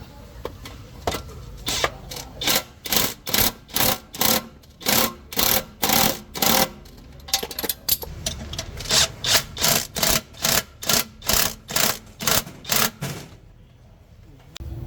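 A hand tool working in regular back-and-forth strokes, like a file or brush scraping, about two to three strokes a second, stopping near the end.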